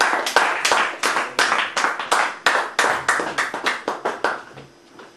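Small audience clapping in applause at the end of a sung song, the separate claps dying away about four and a half seconds in.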